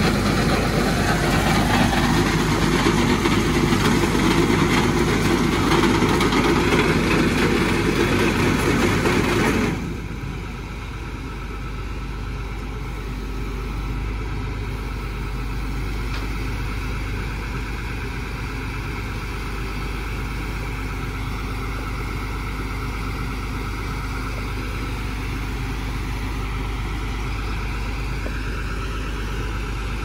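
Bulk feed truck unloading pig feed: the unloading boom and truck engine run with a loud rushing noise of feed pouring from the spout into a bin. About ten seconds in the rushing stops abruptly, leaving the truck's engine idling steadily.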